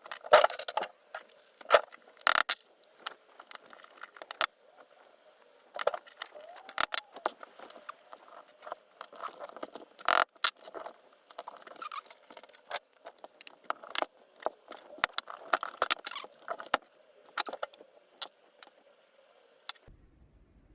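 Irregular metallic clicks, clinks and rattles of a GeGe rim cylinder and steel tools being handled, loudest a few times early on and around the middle.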